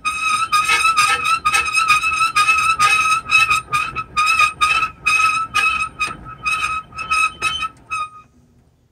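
Pop-up camper's roof-lift crank mechanism squeaking as the roof is cranked down: a high squeak at one steady pitch, repeating two to three times a second with the turns of the handle. It stops about eight seconds in as the roof comes fully down.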